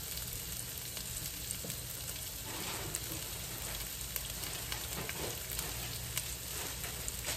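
Sliced onion rings sizzling in grapeseed oil in a frying pan over medium heat: a steady hiss with scattered faint crackles.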